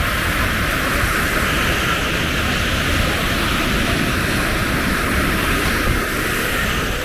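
Ocean surf washing on a beach, a steady rush of noise with no distinct breaks.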